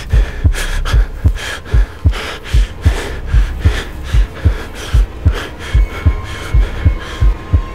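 Heartbeat sound effect: a steady rhythm of low double thumps. A thin steady tone comes in past the halfway mark.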